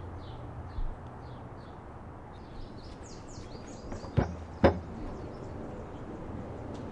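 Small birds chirping in the background, with two sharp knocks about half a second apart a little past the middle.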